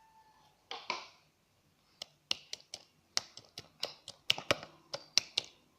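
A quick, irregular run of sharp clicks and taps, roughly four a second, from small containers and tools being handled and set down while slime ingredients are laid out. A short rustle comes about a second in.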